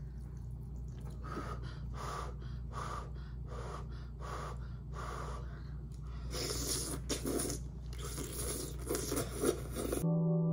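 Close mouth sounds of someone eating noodles, over a low steady hum. First comes a run of short breathy sounds, about three every two seconds. From about six seconds in there is louder wet slurping as a forkful of noodles is sucked in. Electric-piano intro music cuts in just before the end.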